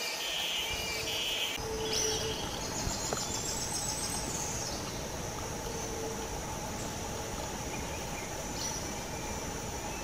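Steady outdoor background noise with faint, high, distant animal calls. A high, pulsing chirr starts about two seconds in and stops about three seconds later.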